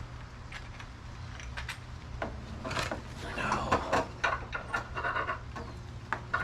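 A few light clicks, then a couple of seconds of scraping and rubbing with short squeaks in the middle, from hard parts of a pop-up headlight assembly being handled and fitted by hand.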